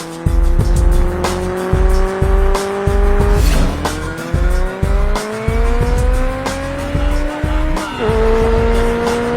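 A car engine accelerating hard, its pitch climbing steadily and dropping sharply twice at upshifts, over music with a heavy, rhythmic bass beat.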